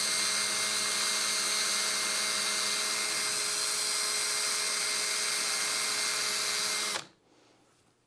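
Cordless drill with a cobalt bit boring into the metal shell of a Schlage lock cylinder, the motor running at a steady speed. It stops suddenly about seven seconds in, once the bit has gone through the shell.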